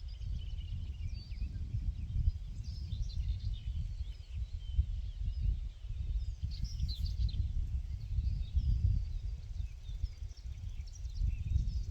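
Several small birds chirping and singing in short, overlapping calls, busiest twice during the stretch. Underneath runs a loud, fluctuating low rumble.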